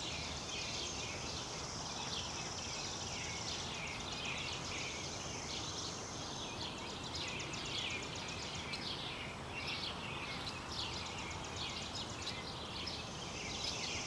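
A dense predawn chorus of many overlapping high chirps and trills from birds and insects in open country, over a steady faint hiss.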